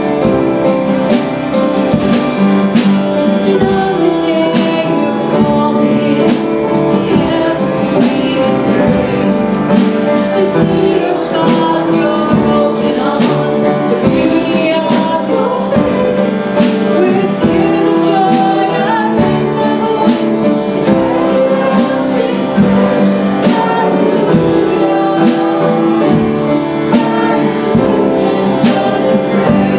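Live congregational worship song: voices singing over a band with guitar and a drum kit keeping a steady beat.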